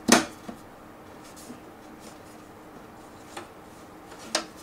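Clicks and knocks of hands handling a Thunderbolt 2 four-bay hard drive enclosure and its front cover: a loud sharp knock at the start, a few faint taps, and another sharp click near the end.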